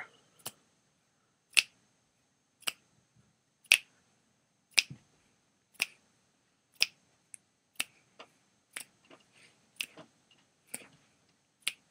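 Fingers snapping in a steady run, about one sharp snap a second, with a few fainter snaps in between.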